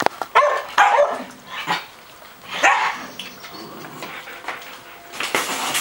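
Small white curly-coated dog barking: a string of short barks in the first three seconds, a pause, and more barking near the end.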